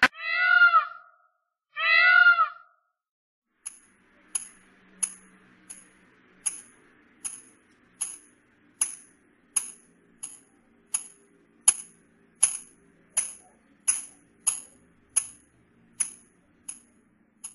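A cat meowing twice, two short calls about a second and a half apart, followed by a steady series of light, high-ringing metallic ticks, about one and a half a second.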